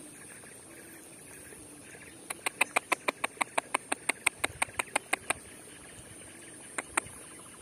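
A fingertip taps the water surface at an eel hole in a flooded rice paddy, a commonly used way to draw the eel out. The taps come as a quick run of sharp little clicks, about four or five a second for some three seconds, then two more near the end. A steady high insect buzz runs underneath.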